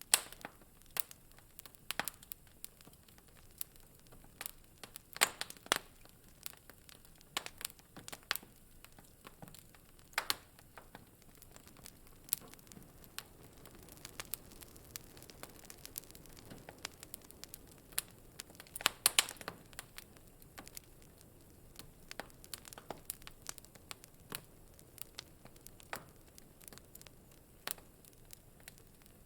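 Wood fire in a fireplace crackling, with sharp, irregular pops and snaps over a faint hiss and a quick cluster of pops about nineteen seconds in.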